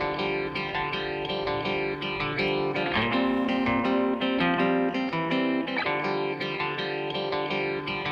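Background music: a picked guitar melody of quick, even notes.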